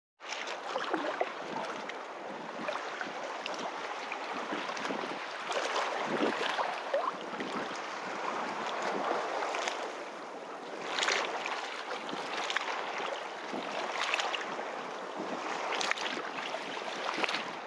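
Wind and surf at the beach: a steady rushing noise that swells and eases every few seconds, with wind buffeting the microphone.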